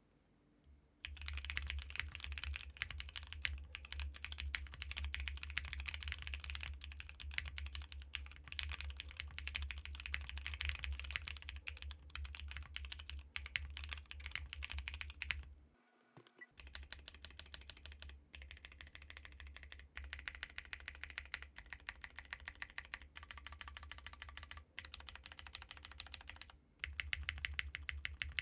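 Typing on a mechanical keyboard with stock JWK Black switches, a 1.2mm PCB and 80A tadpoles: a fast, continuous run of keystroke clacks. The typing pauses briefly about halfway, is softer after the pause, and breaks off again for a moment near the end.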